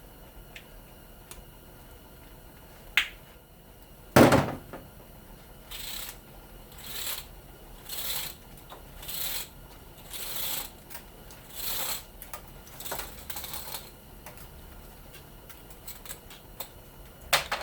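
A sharp knock, then about eight short rustling, scraping strokes roughly one a second, from fine copper winding wire being pulled and handled by hand off a scrapped fan motor.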